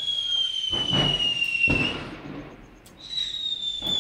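Whistling Diwali fireworks: a high whistle falling slowly in pitch fades out just before halfway, and a second one starts near the end. A couple of firecracker bangs sound about a second in.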